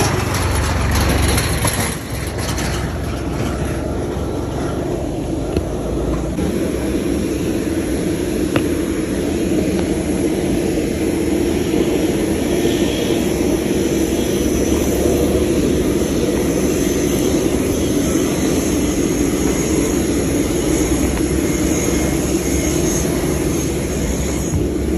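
A Massey Ferguson 415 tractor's engine passing close in the first two seconds, then steady aircraft turbine noise with a faint high whine.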